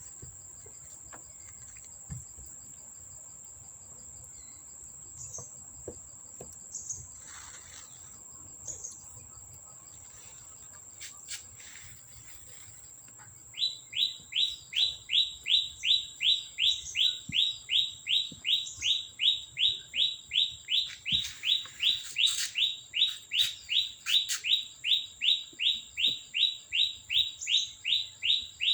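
A bird repeating a short rising chirp about three times a second, starting about halfway through and keeping a very even rhythm, over a faint steady high-pitched trill like an insect's.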